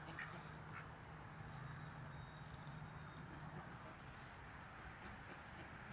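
Quiet, short clucking calls from domestic turkeys, with a few faint high chirps from small birds, over a low steady hum that fades out about three and a half seconds in.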